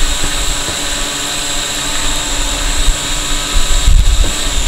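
Quadcopter drone hovering, its propellers giving a steady high whine, with some low rumbles near the end.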